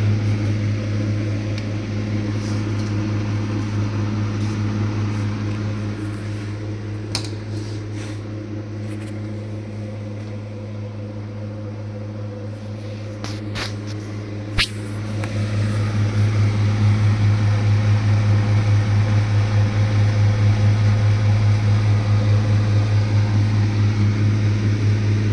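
Blue Star deep freezer running with a loud, steady low hum that pulses rapidly, the abnormal noise the freezer is being shown for. The hum eases a little in the middle and grows louder again about two-thirds of the way in, with a few sharp clicks shortly before.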